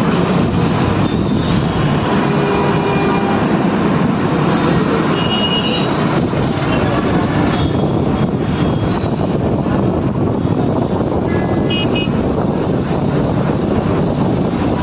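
Steady road traffic noise: a continuous mix of passing vehicle engines and tyres, with a few brief high tones about five seconds in and again near twelve seconds.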